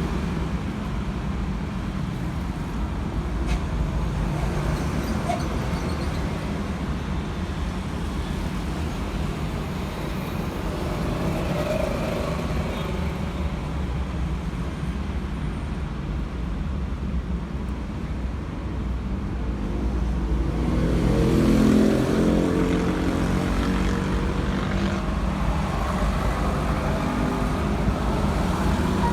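Steady road-traffic rumble. A louder engine passes about three-quarters of the way through.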